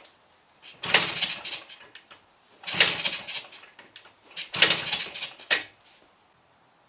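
Three kick-start attempts on a Kawasaki F7 175cc two-stroke dirt bike, each about a second of kickstarter clatter and the engine turning over without catching. The engine does not start, which the owner suspects is down to low compression.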